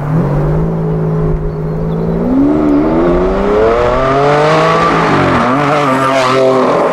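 Ferrari Enzo's naturally aspirated V12, fitted with an exhaust bypass valve, running at low steady revs, then accelerating past with the engine note climbing. The pitch dips briefly about five seconds in, then climbs again.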